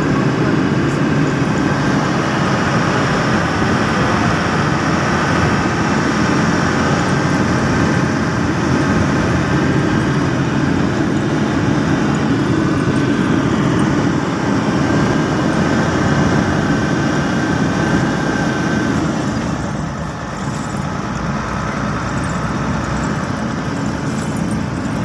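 Ten-wheeler truck's diesel engine running steadily on the move, heard from the cab, with road and wind noise. A faint high whine runs over it and stops about nineteen seconds in, when the whole sound drops a little in level.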